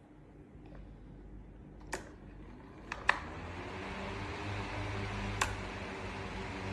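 Electric stand fan's motor starting up and running, its low hum building over the first few seconds, with four sharp clicks, the loudest about three seconds in.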